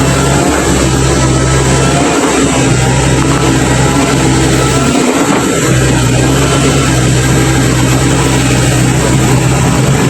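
Komatsu PC135 hydraulic excavator's diesel engine running steadily, with two brief dips in its low hum about two and five seconds in.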